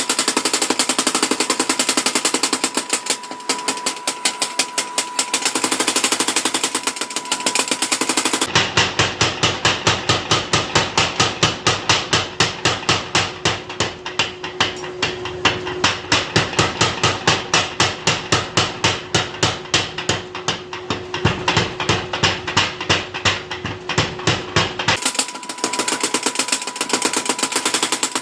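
100 kg mechanical power hammer forging hot steel, its blows coming fast and evenly at about four to five a second. The blows change tone suddenly twice, about eight seconds in and again near the end.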